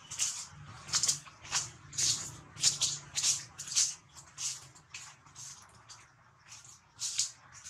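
Dry leaf litter rustling and crunching in short bursts about twice a second, as of steps through fallen leaves. The bursts thin out after about five seconds, with one more near the end.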